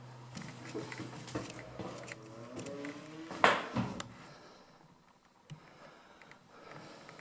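Footsteps and small knocks on a bare floor in an empty building, with a creak about two and a half seconds in and a single loud knock just after it; the sounds then die down.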